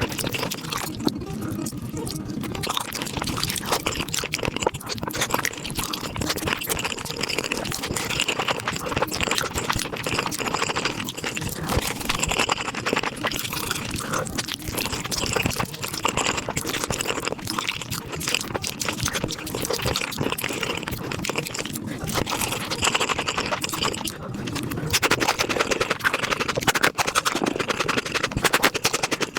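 Close-miked eating sounds of spicy beef feet being chewed and slurped, played back at five times speed: a dense, rapid stream of wet clicks and smacks, a little louder near the end.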